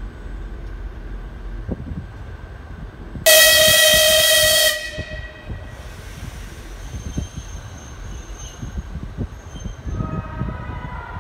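EP2K electric locomotive sounding its horn: one loud blast about a second and a half long, a few seconds in, over a low rumble with scattered knocks.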